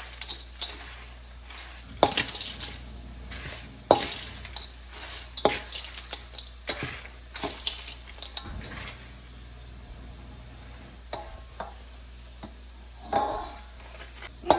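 A wooden spoon tossing a corn chip salad (Fritos, lettuce, cheese, bacon) in a stainless steel mixing bowl: irregular scrapes and knocks of the spoon against the steel, with the rustle of chips and lettuce. The sharpest knocks come about two and four seconds in, and the tossing eases off for a couple of seconds before picking up near the end.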